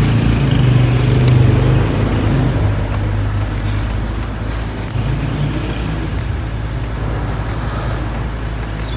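Steady rumble of road traffic, with a low hum that eases off a couple of seconds in.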